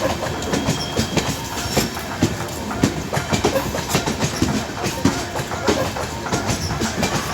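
Passenger train rolling by on the track, its wheels clattering over rail joints in a rapid, uneven run of clicks against a steady rumble.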